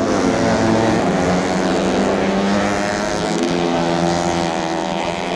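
Several tuned four-stroke underbone race motorcycles, 130cc, racing, their engine notes overlapping.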